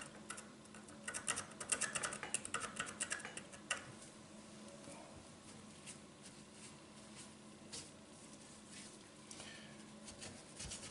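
Quick scratching and scrubbing strokes on the back of a kitchen faucet's spout collar as it is cleaned, busiest from about a second in to nearly four seconds, then a few sparse scrapes.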